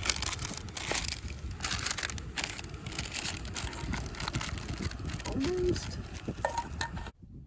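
Wind buffeting the microphone with a steady low rumble, mixed with close crinkling and crackling handling noise, as of packaging or gear being handled. The sound cuts off suddenly near the end.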